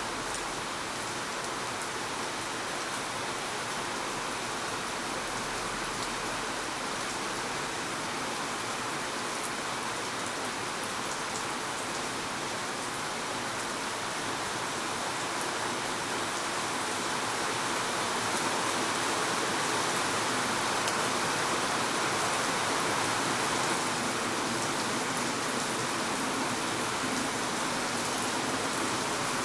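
Steady rain falling, an even hiss of drops on surfaces with faint scattered drop ticks, growing a little heavier past the middle.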